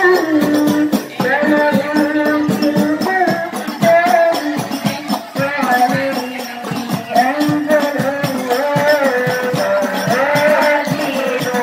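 Girls' voices singing sholawat in unison into microphones over a fast, busy rhythm of hand-struck frame drums (rebana).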